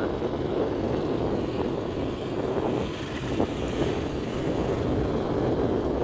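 Steady rushing noise of a vehicle in motion on the road: wind on the microphone over engine and tyre noise.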